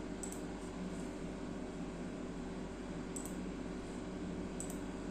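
Steady electrical room hum with three faint computer mouse clicks, one near the start and two in the last two seconds.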